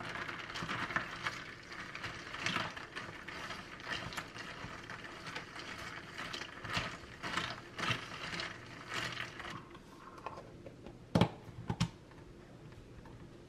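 Ice cubes clinking and rattling against a reusable plastic cup as a straw stirs iced coffee, many quick irregular clicks. Near the end, two sharp knocks about half a second apart as the plastic lid is pressed onto the cup.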